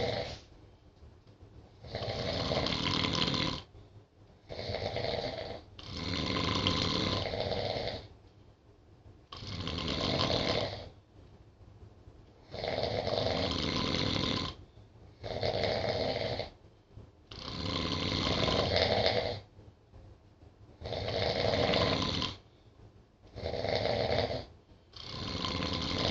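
Two sleeping people snoring: about ten snores, each lasting one to two seconds, with short quiet breaths between them.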